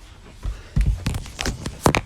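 A quick run of irregular knocks and low thumps, starting about half a second in, with the loudest ones near the end.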